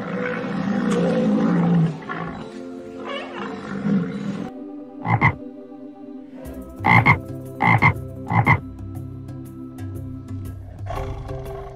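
Tree frog croaking: one short, loud croak about five seconds in, then three more a little under a second apart. A low animal call comes in the first two seconds, and soft background music plays underneath.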